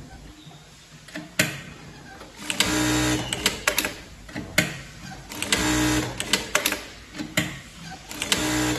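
Industrial direct-drive lockstitch sewing machine stitching in short runs of about a second each, stopping and starting, with sharp clicks between the runs.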